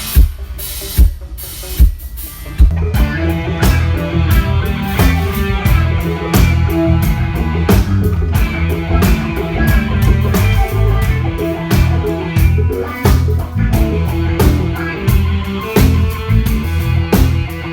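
Live band sound check through a large PA: a few single drum hits, then from about two and a half seconds in the drum kit, bass and electric guitar play together with a steady beat.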